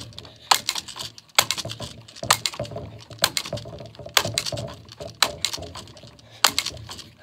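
Multi-pump pneumatic pellet rifle being pumped up to charge it for a shot: the pump lever is worked about once a second, each stroke ending in a sharp click, about seven strokes in all.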